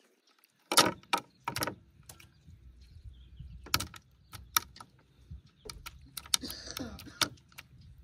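Sharp clicks and knocks on a wooden tabletop as a knife and hands work at dressing quail. There is a quick group about a second in, single knocks near the middle, and a cluster of several more near the end.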